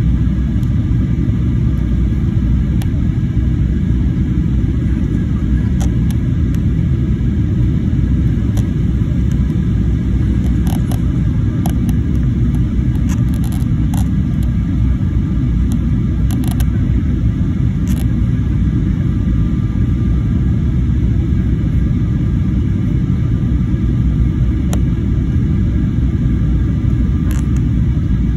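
Steady low rumble of jet airliner cabin noise, engines and airflow heard from a window seat as the plane descends, with a faint steady whine above it.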